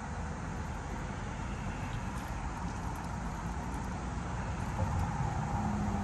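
Steady hum of road traffic crossing a highway bridge, slowly growing a little louder.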